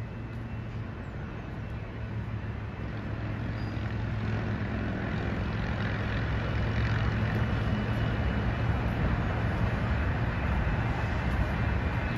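Low, steady mechanical rumble with a hum, growing gradually louder.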